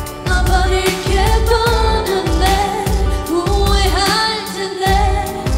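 K-pop song: a woman singing the melody over a pop backing track with a steady bass-drum beat.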